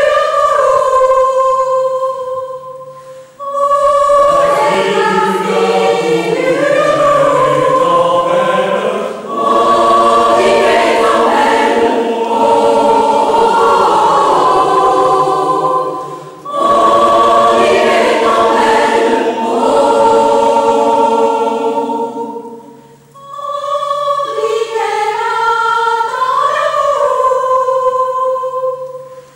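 Mixed choir of men's and women's voices singing together in parts, with no instruments, in long sustained phrases separated by short pauses; the last phrase fades away near the end.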